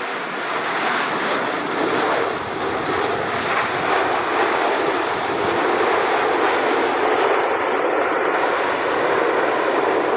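Jet airliner engines passing close: a loud rushing noise that builds over the first second, then holds steady.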